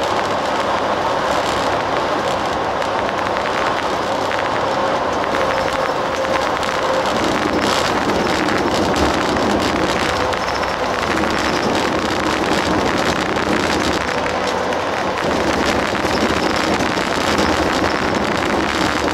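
Limousine bus on the move, heard inside the cabin: a steady wash of tyre and road noise with a faint engine hum, even in level throughout.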